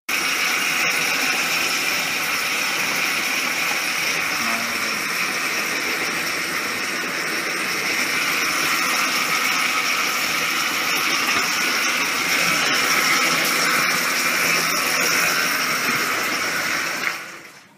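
Concrete pan mixer and belt conveyor of a block-making plant running, with the paddles churning sand-cement mix: a steady, loud mechanical noise with a few light clicks. The noise drops away near the end.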